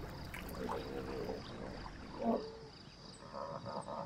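Hippopotamus calls from a pod in the water: a wavering call about a second in and a shorter one at about two seconds, over a low rumble. Near the end a frog chorus starts up.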